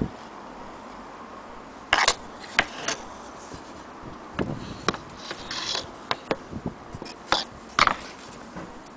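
Irregular clicks and light knocks of wood and metal, as from the wooden wall clock and its parts being handled. There is no clock chime and no steady ticking.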